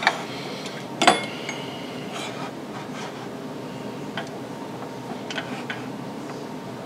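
Two sharp metal clanks, the first right at the start and the second about a second in, then a few light clinks: a lathe's cast-iron tool rest being moved and set in place in front of the wood blank.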